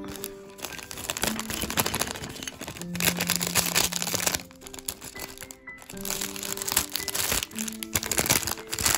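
Minifigure packaging crinkling and rustling as it is opened and handled, in two spells, over steady background music.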